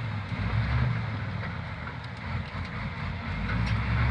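Diesel engine of a LiuGong crawler bulldozer running steadily, growing louder again near the end.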